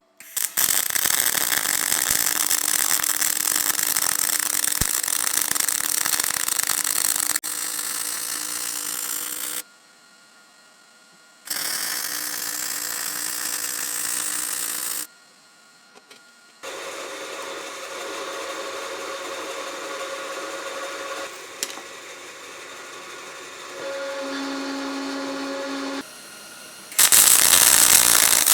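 Power tool running steadily in a string of short cut-together clips, each starting and stopping abruptly, with two brief quiet gaps.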